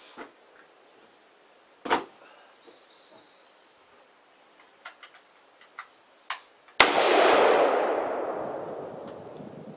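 Rifle gunfire: a sharp shot about two seconds in, a few small clicks, then a loud shot near the end whose echo rolls on and fades over about three seconds.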